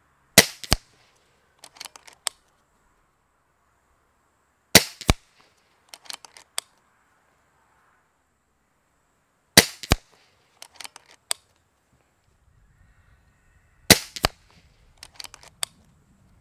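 Kral Puncher Breaker .22 PCP air rifle firing four shots about four and a half seconds apart. Each sharp crack is followed about a third of a second later by a second, fainter crack. A quick run of light mechanical clicks comes a second or two after each shot as the action is cycled for the next pellet.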